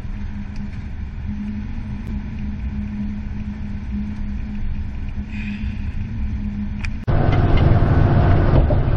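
Engine and road drone inside a moving cargo van's cab: a steady low hum. About seven seconds in it abruptly becomes louder and fuller.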